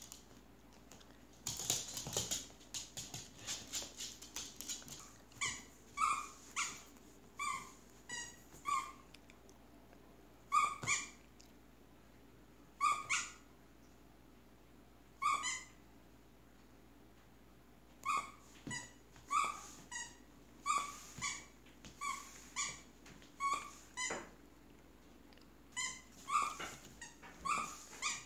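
Short high-pitched squeaks, repeated irregularly and some in quick pairs, as a small dog plays with a plush toy. Before them comes a quick run of clicks.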